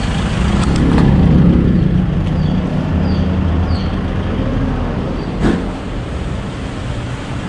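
Road traffic rumbling, with a vehicle swelling louder and passing about a second in. A sharp knock comes about five seconds in.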